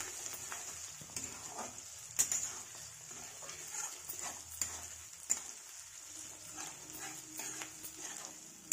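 Metal spatula scraping and knocking against a steel kadhai at an irregular pace, stir-frying fish roe in hot oil with a light sizzle underneath.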